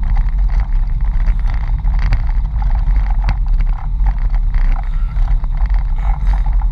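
Mitsubishi Pajero rally car heard from inside the cabin: a steady, loud low rumble of engine and drivetrain, with scattered rattles and knocks.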